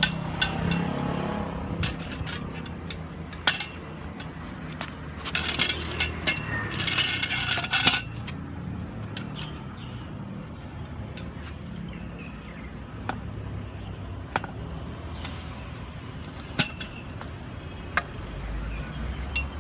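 Metal parts of a bicycle repair stand clicking and clinking as it is handled and assembled, with a stretch of rattling clatter about five to eight seconds in.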